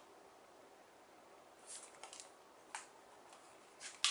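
A cat swatting at a dangling tasselled toy: a few soft rustles and taps in a quiet room, the loudest near the end as it lunges at the toy.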